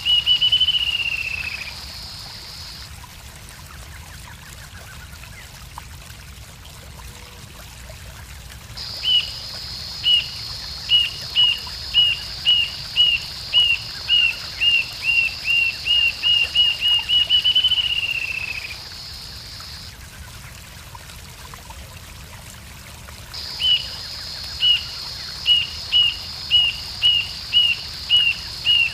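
Rufous-tailed jacamar singing: high, thin whistled notes, about two a second, that speed up into a trill and fall in pitch at the end. One phrase ends just after the start, a full phrase comes about a third of the way in, and another begins near the end.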